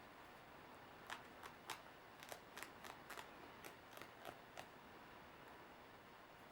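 Small scissors snipping, a dozen or so faint quick clicks in a cluster lasting a few seconds, as excess old thread is trimmed away.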